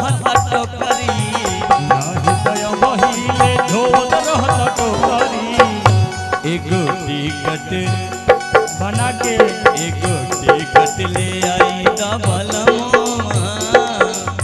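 Live Bhojpuri folk song: a male voice singing into a microphone over a steady hand-drum beat, with held instrument tones underneath.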